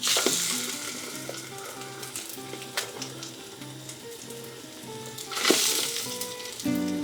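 Batter-soaked crumpets frying in olive oil in a non-stick pan, sizzling steadily; the sizzle flares up loudly at the start and again about five and a half seconds in.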